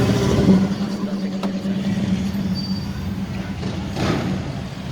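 Street traffic: a motor vehicle's engine running with a steady low hum that slowly fades away near the end.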